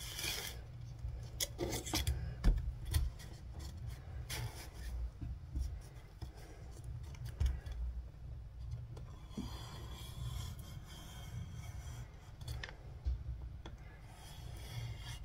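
Hands rubbing and pressing paper against taped cardboard: an irregular run of dry scraping and rustling strokes with scattered soft knocks.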